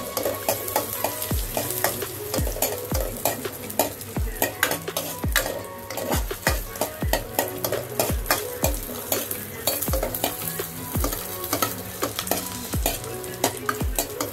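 Cashews, almonds and raisins shallow-frying in a little oil in a non-stick kadai, stirred with a spatula: repeated scrapes and taps, about one or two a second, over a light sizzle.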